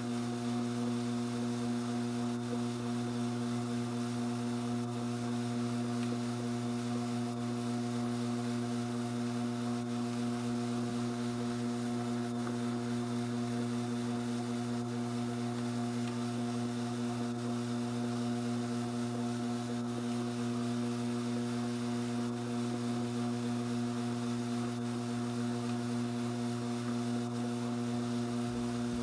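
Strauch Mad Batt'r electric drum carder running at a steady speed, its motor and drive giving an even, unbroken hum made of several steady tones.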